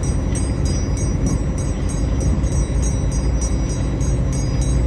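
Steady low rumble of a running engine, even in level throughout.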